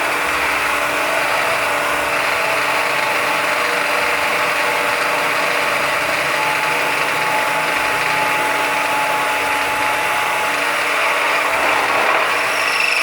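Multi-spindle drilling machine running: a steady, loud mechanical rattle, with a thin whine that comes in for a few seconds in the middle.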